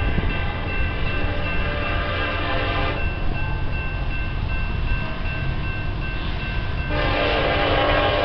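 Approaching Union Pacific locomotive's air horn sounding long blasts for a grade crossing, the chord changing about three seconds in and returning louder about seven seconds in, over a steady low rumble.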